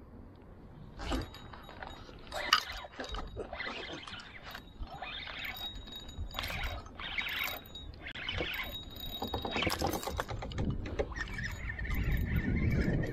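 Fishing reel being wound in repeated short bursts against a hooked fish on a bent rod. A low rumble builds near the end.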